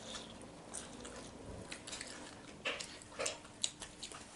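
Close-up eating sounds: a child chewing a mouthful of meatball, with scattered small mouth clicks and a few louder short noises in the second half.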